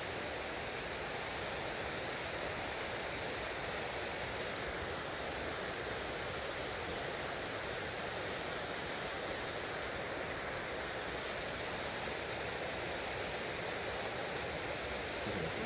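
Steady rush of water, an even hiss without rhythm.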